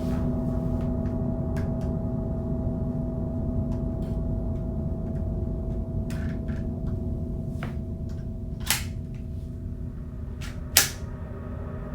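A low, steady drone with scattered faint clicks, then two sharp cracks about two seconds apart near the end, the second the loudest: suppressed handgun shots.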